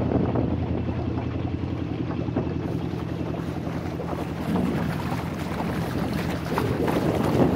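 A wooden boat's inboard engine running steadily underway, with water rushing and splashing along the bow; the water noise grows louder near the end.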